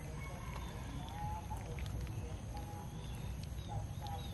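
A group of cats eating rice from a metal tray: steady wet chewing and smacking with many small clicks.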